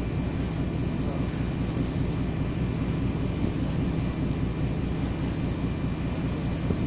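Star Ferry's engine running steadily, a low drone with a fast, even throb, over a constant rush of water and air noise.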